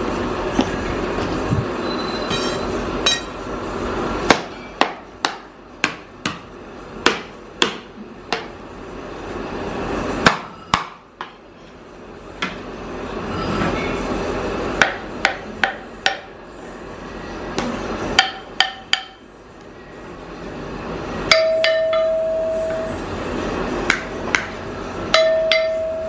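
A metal rod striking sand molds and freshly cast bronze bells to break them out: dozens of sharp knocks at irregular spacing. Twice near the end a struck bronze casting rings on with a clear tone.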